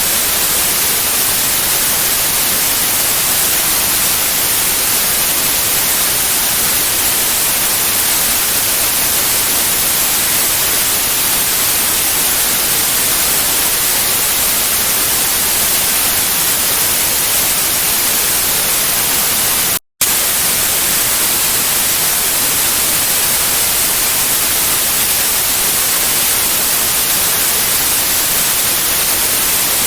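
Steady white noise: an even, featureless hiss, strongest in the high frequencies. It cuts out for a split second about two-thirds of the way through, then resumes unchanged.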